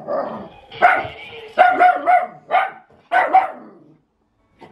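Small Yorkshire terriers barking and yapping at each other in play, about six short, high barks in quick succession, then cutting off suddenly.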